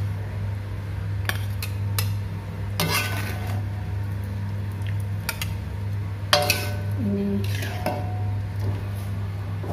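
Long metal ladle scraping and clinking against an aluminium wok as cooked fish is scooped out, in a string of separate knocks and scrapes. A steady low hum runs underneath.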